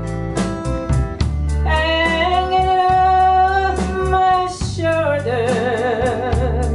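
Live band playing a slow country ballad: a woman singing with vibrato, holding one long note through the middle, backed by strummed acoustic guitar and upright bass.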